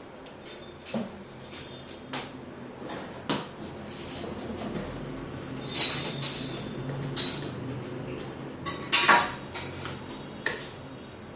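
A knife cutting the packing tape along the top of a cardboard TV box, with scrapes and knocks of the cardboard being handled; the loudest is a short noise about nine seconds in.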